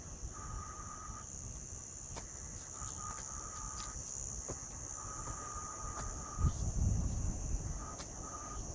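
Insects in bushland buzzing steadily at a high pitch, with a lower insect trill that comes and goes every second or two. A low rumble joins about two-thirds of the way through.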